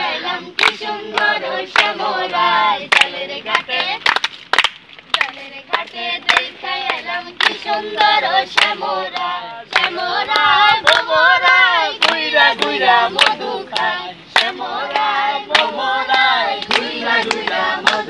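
A group of voices singing together, with steady hand-clapping in time about twice a second.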